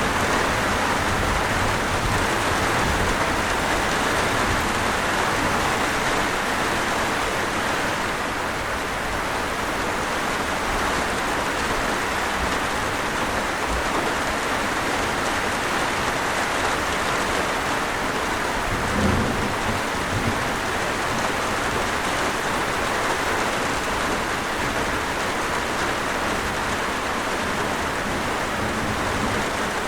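Steady rain, an even dense hiss, with a brief low rumble about two-thirds of the way through.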